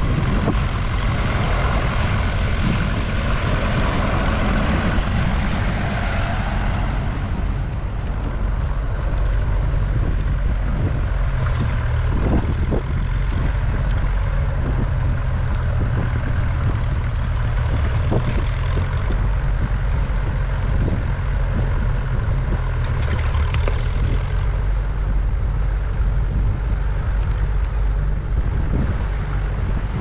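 Engine of a grey Ferguson TE20 tractor running steadily under load as it pulls a mounted plough through the field.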